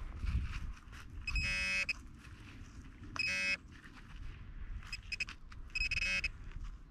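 Handheld metal-detecting pinpointer buzzing on and off as its probe is worked through loose soil in a dig hole, sounding when its tip nears the buried metal target. There are three longer buzzes and a few brief chirps, over low rustling from soil and glove handling.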